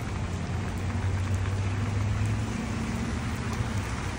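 Steady heavy rain falling on wet parking-lot pavement, with a low car engine hum that is strongest in the first half and then eases off.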